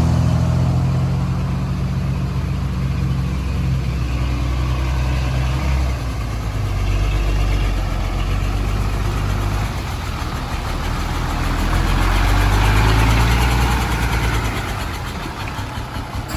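Heavy earth-moving machine's engine running steadily, its pitch shifting down a step about a quarter of the way in and again shortly after, then growing louder for a few seconds about three-quarters of the way through.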